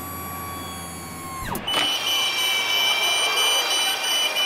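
Coconut vending machine's mechanism whining steadily as its lift lowers the drilled coconut to the pickup window. About a second and a half in the whine falls in pitch and stops, and a louder, higher whine with a fast pulse, about five times a second, takes over and cuts off sharply at the end.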